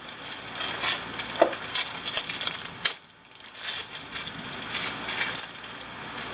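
Irregular clicks and scraping of metal steering parts being handled on a workbench, with a brief pause about three seconds in, as an outer tie rod end is fitted onto its threaded adjuster sleeve.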